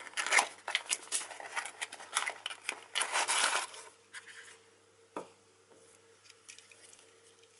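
Small cardboard box being opened and a fabric glove pulled out of it: a flurry of scraping and rustling for about four seconds, then a single knock, then quiet.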